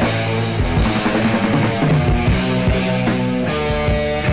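Rock backing music with electric guitar and a steady drum beat.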